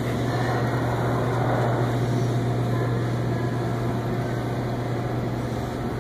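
Supermarket background: a steady low mechanical hum with an even rushing noise over it.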